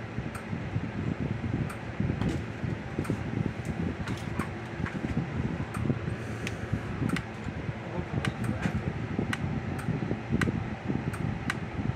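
Sharp clicks, about two a second at slightly uneven spacing, over a steady fan-like hum.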